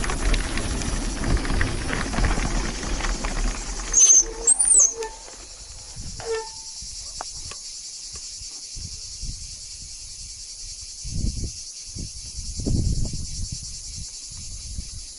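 Insects chirring in a steady high drone. For the first five seconds a low rumbling noise covers it, then stops abruptly.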